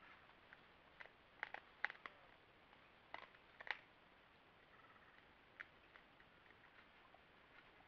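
Collared peccaries foraging in dry leaves and corn bait: faint crackles and crunches in two short clusters, about a second in and about three seconds in, with a single click later, over a quiet background.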